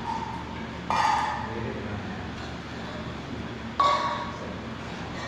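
Stainless steel dog bowls clinking, two sharp metallic rings about three seconds apart, each dying away over about half a second.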